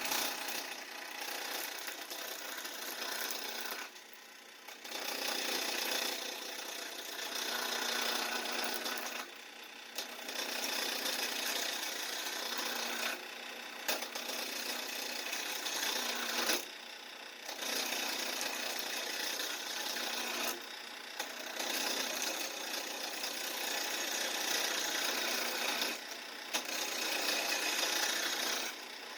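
Wooden chair-stretcher blank spinning on a Craftsman King Seeley lathe while a turning tool cuts it down: a continuous rasping scrape of the tool on the wood. It breaks off briefly every few seconds and then resumes.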